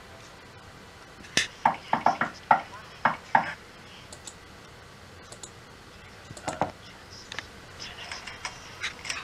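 Knocking on a door: a quick run of about seven raps, then two more a few seconds later and a few fainter taps near the end.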